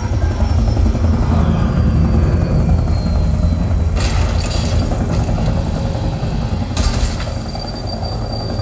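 Film sound effects played loud through a home-theater system with dual subwoofers, heard in the room: a heavy, steady low rumble like engines, with two sharp hits about four and seven seconds in.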